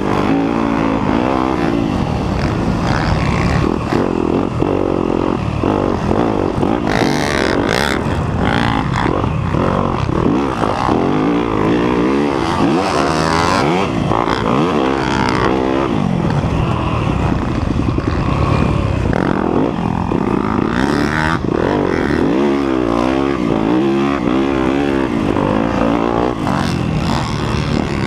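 2019 Yamaha YZ250F's single-cylinder four-stroke engine being ridden hard, its pitch rising and falling over and over with the throttle and gear changes. A few short rushes of noise break in along the way.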